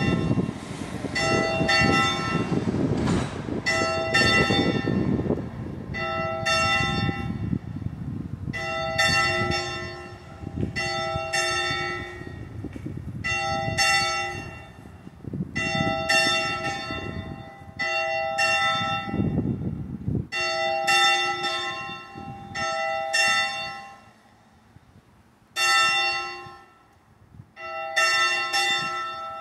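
Church bell ringing, a stroke about every second, each one ringing on into the next. A low rumble lies underneath until about two-thirds through. After that the strokes come less often, with short pauses near the end.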